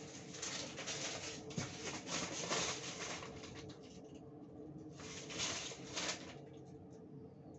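Paper towel rubbing and wiping across a kitchen counter and stovetop, in rustling strokes that stop about four seconds in, return briefly about a second later, then fade, over a steady low hum.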